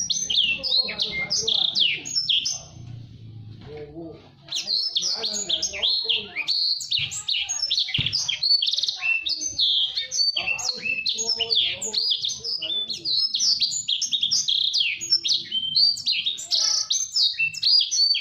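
Blacksang, a black-throated canary × sanger canary hybrid, singing a fast, densely packed twittering song of rapid high notes and trills. The song breaks off briefly about two and a half seconds in, then runs on without a break.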